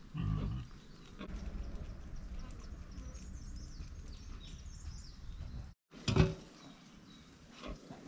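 Farm animal grunting: a loud short grunt just after the start and another, louder one just after an abrupt break about six seconds in, over a steady low rumble.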